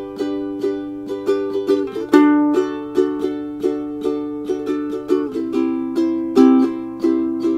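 Ukulele music: chords played in a steady rhythm of about three strokes a second, changing chord about two seconds in and again about five seconds in.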